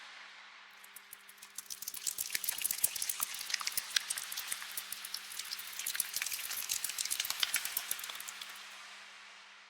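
A bat swarm in a cave: a dense crackle of high squeaks and chirps that swells up about a second in and fades away near the end. A faint steady low hum runs underneath.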